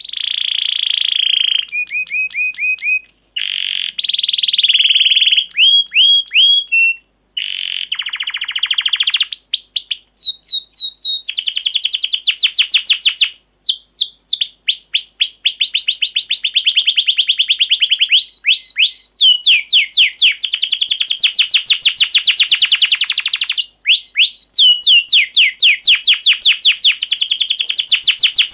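Domestic canary singing a long, loud song of rapid trills and rolls, fast runs of repeated chirps and falling whistled sweeps, with brief pauses between phrases.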